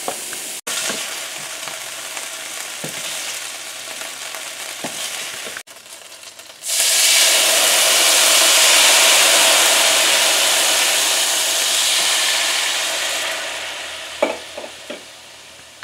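Cubed chicken frying in olive oil in a stainless steel skillet, a steady sizzle with a few light knocks. About seven seconds in, wine poured into the hot pan to deglaze it sets off a sudden loud hiss of sizzling and steam, which fades over the last few seconds.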